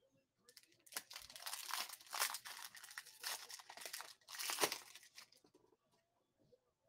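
A foil trading-card pack being torn open and crinkled by hand: an irregular run of crackles and tearing for about four seconds that stops near the end.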